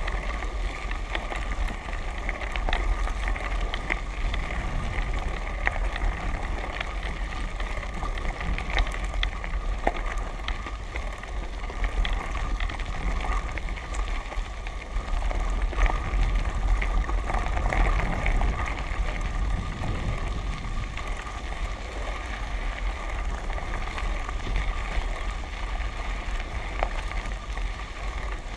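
Tyres rolling over a gravel and dirt track, with many small clicks from the stones, a deep rumble of wind on the microphone and a faint steady hum.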